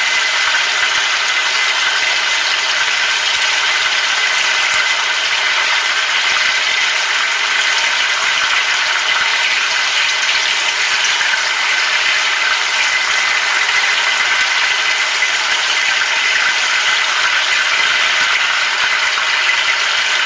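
Flour-battered chicken pieces deep-frying in hot oil in a wide pan, a steady loud sizzle as they fry until golden.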